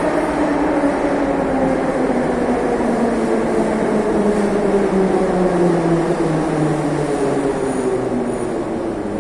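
Metro train running in the station tunnel: a whine from its traction motors sliding slowly down in pitch over the rumble of the train, fading a little near the end.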